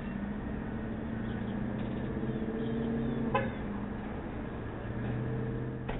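Street traffic: motor vehicle engines running at low speed, a steady low hum with a few held tones that shift about three seconds in. A single sharp click comes at about three and a half seconds.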